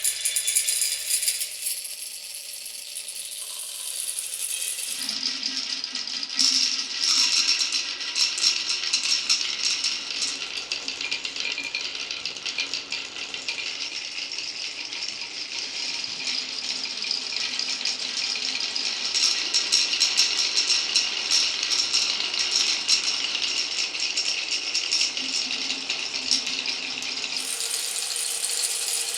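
Marbles rolling and clattering down a wooden marble run: a dense stream of rapid clicks and knocks, with a steady low rolling hum from about five seconds in until shortly before the end.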